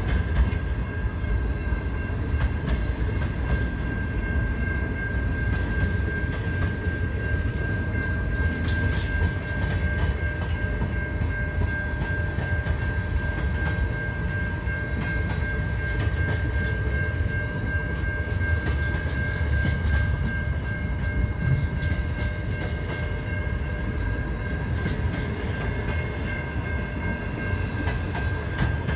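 Container wagons of a long freight train rolling past: a steady low rumble of wheels on rail, with scattered faint clicks and a steady high whine over it.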